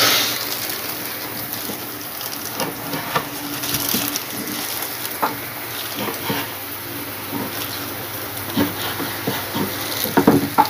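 Kitchen knife slicing raw fish fillet on a wooden cutting board, with a few soft, irregular knocks of the blade on the board, over a steady rushing hiss in the background.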